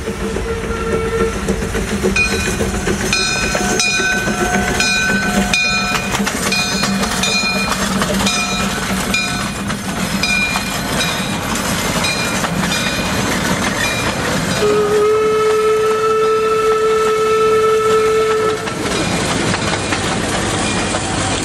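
Steam locomotive whistle gives a short blast, then the locomotive's bell rings steadily for about seven seconds over the engine's running. About fifteen seconds in, the whistle sounds again in one long steady blast of about four seconds.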